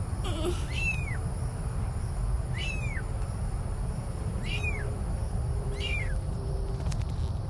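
Newborn kittens mewing: about four short, high, thin cries spaced a second or two apart, over a steady low rumble.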